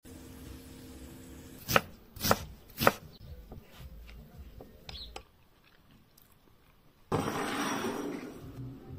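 Kitchen preparation sounds: three sharp knocks about half a second apart, then light clinks of a metal spoon stirring chili oil in a glass bowl. About seven seconds in comes a short burst of hiss.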